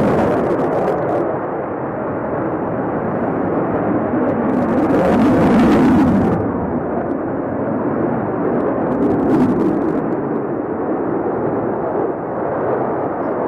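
Jet engines of a Sukhoi Flanker-family fighter during an aerobatic display: a continuous loud jet noise that swells to its loudest about five to six seconds in, then eases a little.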